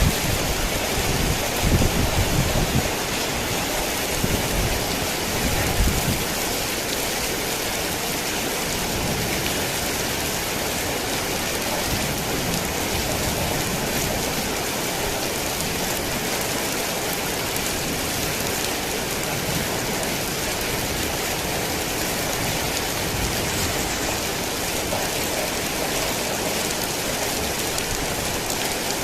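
Heavy rain falling steadily in a dense, even hiss. A few low rumbles, thunder, come in the first several seconds, then the rain carries on alone.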